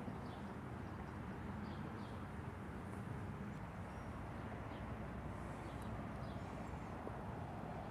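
Faint outdoor ambience: a steady low rumble with a few faint, short high chirps.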